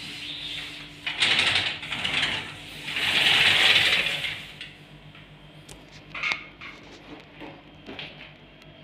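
Sliding window sash rolling along its track, a rattling scrape about a second in and a longer, louder one around three seconds in, followed by a few light clicks.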